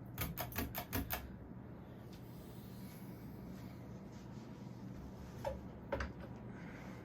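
Kmart Atlantic Air spinner ceiling fan running on high speed with a steady low motor hum. A quick run of about six light clicks comes in the first second, and two more clicks come near the end.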